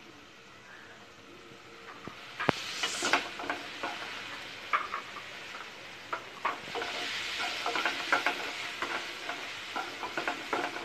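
Chopped beans, carrot, capsicum and sliced onion sizzling in oil in a nonstick kadai, while a spatula stirs them with frequent clicking taps and scrapes against the pan. The sizzling and stirring start about two seconds in.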